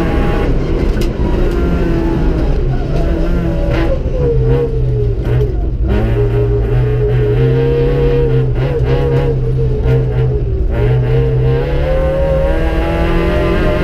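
Opel Corsa B rally car's Z14XEP 1.4-litre four-cylinder engine heard from inside the cabin, driven hard through the gears: its pitch climbs, falls away at each shift or lift-off, and climbs again, with a long drop a few seconds in and another near the end before it pulls back up.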